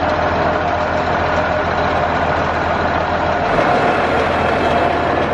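Tourist train's engine idling steadily at the station: a constant low hum with a steady whine above it.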